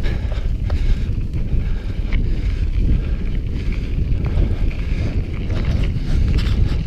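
Wind rushing over the microphone of a camera on a mountain bike riding down a rough gravel track: a loud, steady low rumble with scattered clicks and rattles from the bike and tyres on stones.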